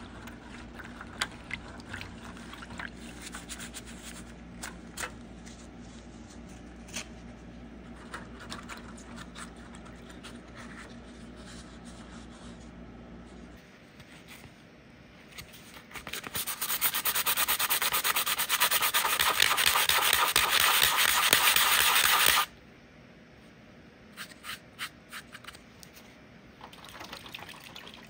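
Hand wet sanding: small handling clicks while the sandpaper is wetted in a tray of water, then about six seconds of fast, continuous sandpaper strokes over the model snowmobile's body shell, stopping abruptly.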